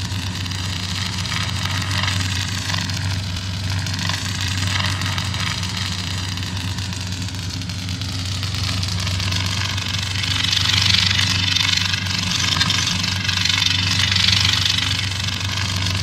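Sound effect of Kylo Ren's crossguard lightsaber idling: a steady low hum with a crackling hiss above it that slowly wavers in pitch. The hiss swells louder from about ten seconds in.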